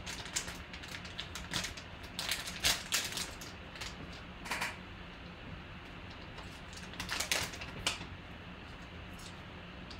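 Foil trading-card pack wrapper being torn open and crinkled by hand: irregular crackles and sharp clicks, coming in clusters about two to three seconds in, again near the middle and around seven to eight seconds.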